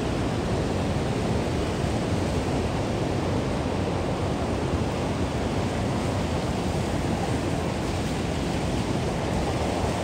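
Steady rushing of river water over rock, an even unbroken noise.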